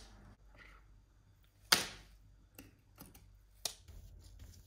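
Sharp knocks and clicks of hard parts being handled during work on a diecast model car: one loud knock about two seconds in, then three lighter clicks.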